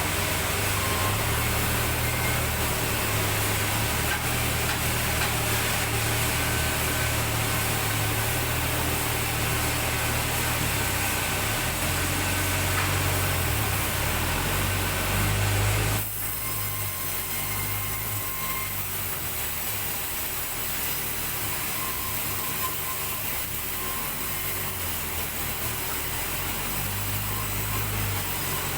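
Sawmill saw cutting lengthwise through a hardwood log, a steady cutting noise over the machine's low hum. About sixteen seconds in the sound drops suddenly and carries on quieter.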